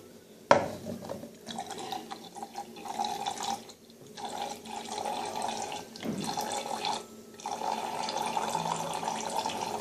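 Water running or pouring into a container, starting abruptly about half a second in and breaking off briefly twice.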